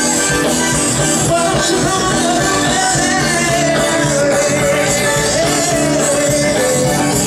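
Live band playing a song during a sound check, a held, wavering melody line over a steady beat.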